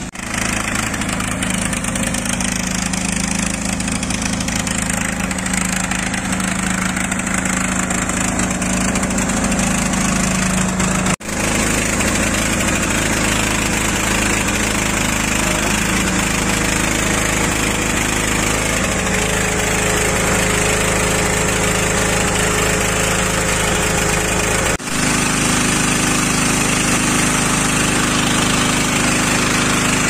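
Small gasoline engine running steadily at a constant speed, with a steady hum. It is the auxiliary motor that drives the lowboy trailer's hydraulic gooseneck. The sound breaks off for an instant twice.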